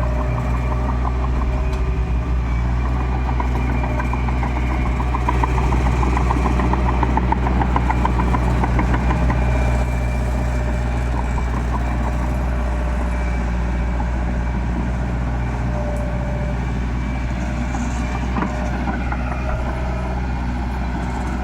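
Heavy diesel machinery engine running steadily, with a fast mechanical rattle that grows a little louder for several seconds before easing off about ten seconds in.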